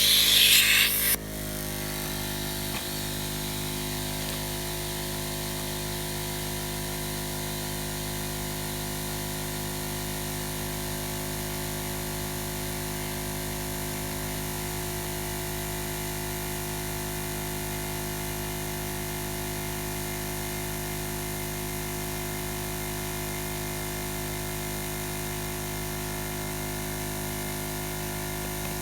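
Smittybilt 2781 portable 12-volt air compressor running steadily, inflating a strapped tire to seat its bead. For about the first second there is a loud hiss of air.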